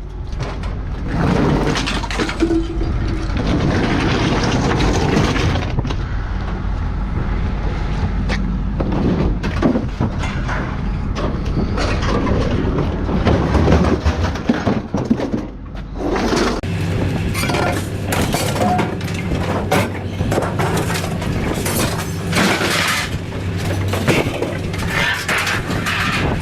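Scrap metal being thrown off a pickup truck onto a scrap pile: repeated, irregular crashing and clanging of steel parts hitting metal, with a steady low machine hum underneath.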